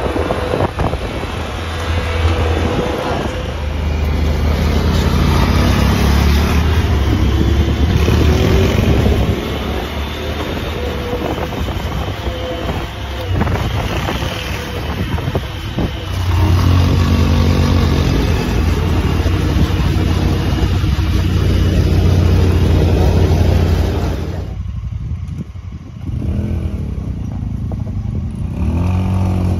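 Polaris Ranger 150 youth side-by-side's small single-cylinder engine running and revving as it drives over dirt trail, swelling and easing with the throttle. The sound changes abruptly where clips are cut together, with a brief dip a few seconds before the end.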